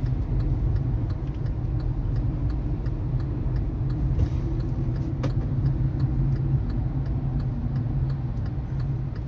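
Steady low rumble of a car's engine and tyres heard from inside the cabin while driving in slow traffic, with a light, regular ticking about three times a second.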